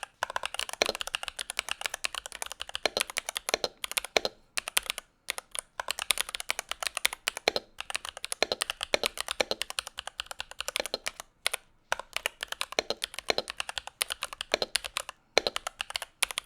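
Typing on a NuPhy Halo65 high-profile mechanical keyboard with its stock Gateron G Pro Brown 2.0 tactile switches, fast keystrokes with a few brief pauses.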